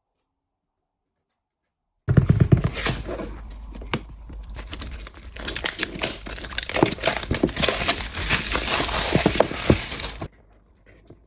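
Packaging being torn open and crinkled by hand: dense rustling and tearing with sharp crackles. It starts suddenly about two seconds in and stops abruptly near the end.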